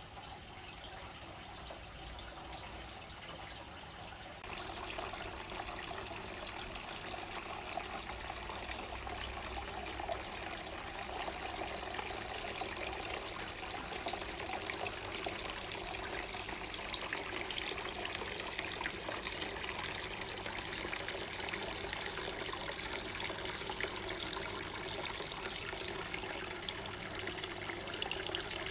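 Tiered multi-bowl water fountain: water spilling over the lips of the stacked bowls and splashing down into the basin below, a steady trickle and splash. It gets louder about four seconds in.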